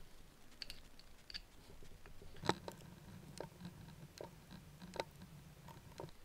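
Faint, scattered small metal clicks and ticks from a hex driver turning the back-plate screws out of a model nitro engine, with the tiny screws being set down. Three of the clicks, about two and a half, three and a half and five seconds in, are sharper than the rest.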